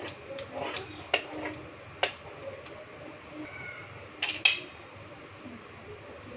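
Kitchen utensils and cookware clattering: a few separate sharp knocks and clinks, two of them close together near the end and the loudest.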